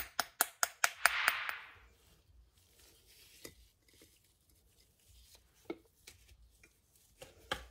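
Rapid sharp taps, about five a second, on a packed bath bomb mold to loosen it from the pressed powder. They stop about a second in with a brief hissing rustle, then only a few faint clicks and handling as one half of the mold is lifted off the bath bomb.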